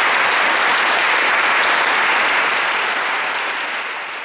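Audience applauding steadily, tapering off slightly near the end.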